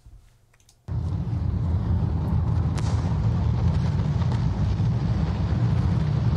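Deep, steady drone of a large formation of B-17 bombers' four-engine radial piston engines, cutting in abruptly about a second in, with a few faint thuds of flak bursts.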